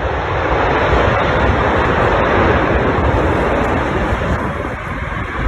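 Strong wind from an approaching tornado rushing over the microphone, a loud, steady noise that eases slightly near the end.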